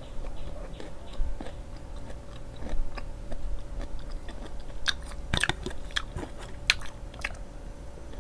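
Chewing and wet mouth sounds of a person eating a spoonful of food, with a run of louder, sharp clicks about five to seven seconds in.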